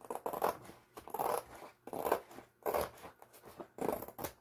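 Scissors snipping through the edge of a diamond painting canvas to trim off excess, about five cuts roughly a second apart.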